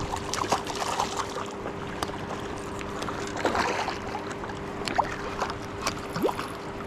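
A hooked golden dorado thrashing and splashing at the surface as it is reeled in to the rocks on a baitcasting rod, with water sloshing and many short splashes.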